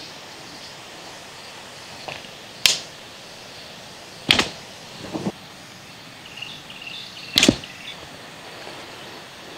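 Sharp snaps and swishes of dry twigs and branches as a person pushes through forest undergrowth on foot, four of them a second or two apart.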